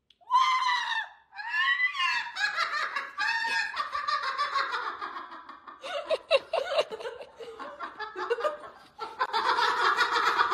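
A cockatoo mimicking human laughter: a run of loud, high-pitched laughs, repeated over and over.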